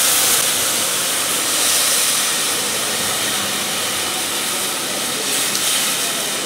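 Hot beef broth being poured into a hot pot of seared beef cubes, sizzling and hissing with steam as it deglazes the pot bottom. The hiss eases slowly.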